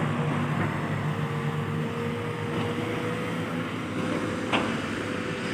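Kobelco SK210-8 excavator's diesel engine running steadily under work, with a held tone over it and a single sharp metallic knock about four and a half seconds in.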